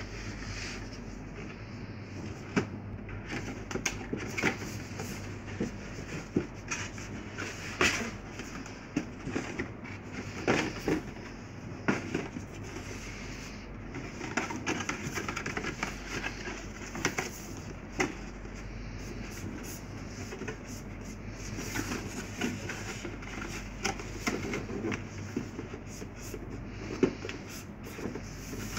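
Stiff printed cardstock being folded and handled to assemble a bag-shaped box: irregular crackles, rustles and sharp taps of the card, over a low steady hum.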